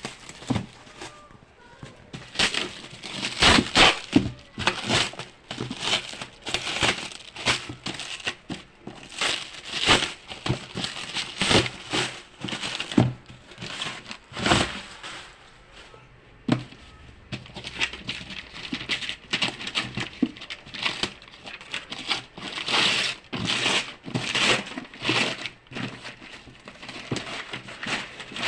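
Packaging crinkling and rustling in irregular bursts, with small knocks, as a shoe is handled and unwrapped.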